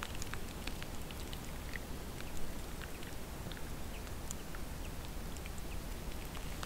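Small birds chirping and calling faintly in woodland, many short high notes scattered throughout, over a low steady rumble with light ticking.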